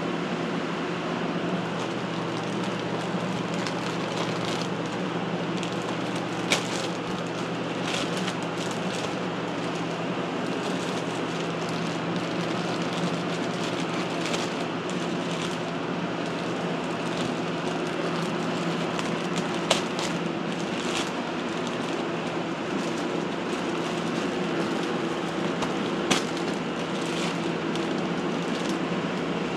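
Laminar flow hood's blower fan running steadily with a low hum. Plastic grain spawn bags crackle sharply now and then as they are handled and opened.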